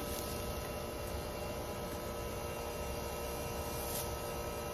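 Steady hum made of several fixed tones over a low rumble, unchanging throughout, with no distinct knocks or other events.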